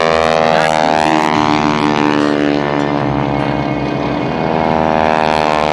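Stearman PT-17 biplane's radial engine and propeller droning loudly in a low pass, the pitch of the engine note bending as it goes by.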